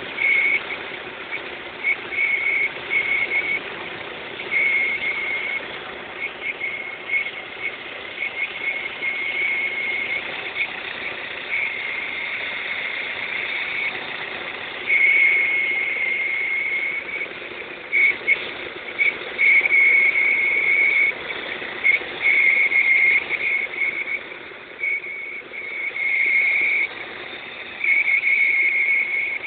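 Opel X20XEV 2.0-litre 16-valve four-cylinder engine running warm, with a high-pitched whistle that cuts in and out irregularly, in short chirps and longer spells, over a steady engine hum. It is a strange noise that appears only once the engine is warm.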